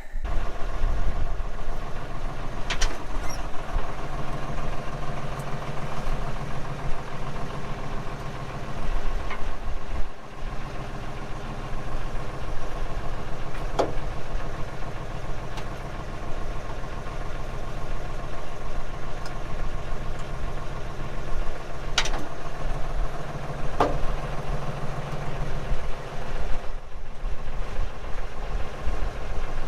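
Valmet 505 tractor's diesel engine running steadily at idle, with a few brief sharp clicks or knocks over it, while the just-resealed hydraulic cylinder is tried out for leaks.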